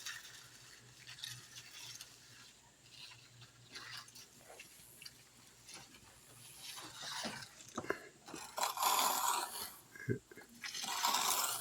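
Hand trowels scraping over wet concrete as a fresh slab is smoothed, in irregular strokes, the loudest about nine seconds in and again near the end.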